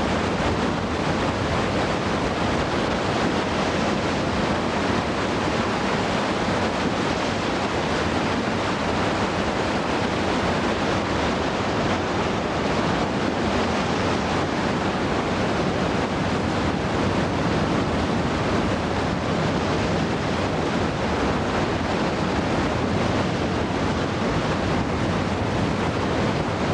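Steady rushing of a large, powerful whitewater river in heavy rapids.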